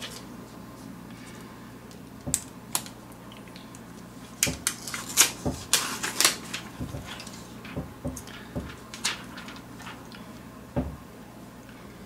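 Clear plastic protective film on a tablet crackling in scattered sharp clicks as it is peeled off and handled, about a dozen over the last ten seconds.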